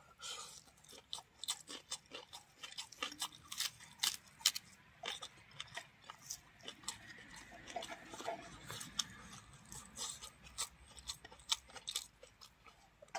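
Close-miked eating sounds: a man chewing a mouthful of rice and lettuce, with an irregular run of wet mouth clicks and smacks and his fingers scooping rice in a wooden bowl.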